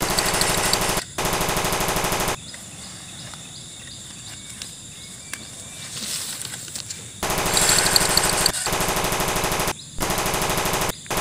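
Toy assault rifle's electronic machine-gun sound effect: bursts of rapid, evenly spaced rattling, two back to back at the start, then a pause of about five seconds, then three more bursts.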